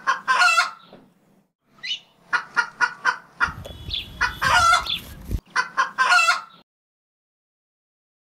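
Chicken clucking in quick runs of short calls, with a longer crowing call near the middle. It cuts off suddenly about a second and a half before the end.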